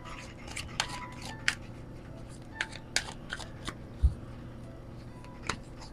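Oracle cards being shuffled by hand: a scatter of light card flicks and clicks, with one low thump about four seconds in.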